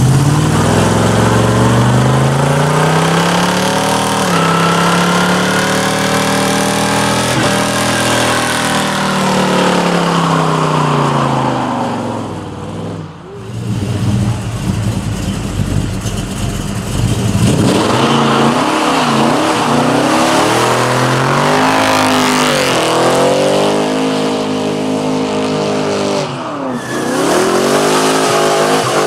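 Muscle car engine revving hard for a burnout, its pitch rising and falling in long swells. About halfway through it drops away briefly, then comes back with quicker up-and-down revs, with another short dip near the end.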